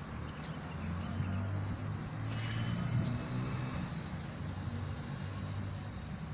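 A steady low hum of an engine running, with faint voices in the background.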